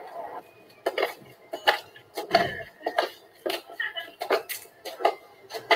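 A run of sharp, uneven clicks and knocks, roughly three a second, with a few short high notes in between, heard in the soundtrack of a film played back.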